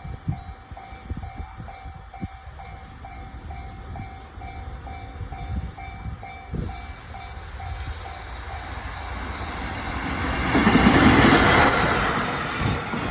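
Level-crossing warning bell ringing about twice a second as an EF65 electric locomotive hauling a freight train approaches. The train's rumble swells and is loudest about eleven seconds in as it passes the crossing, drowning out the bell.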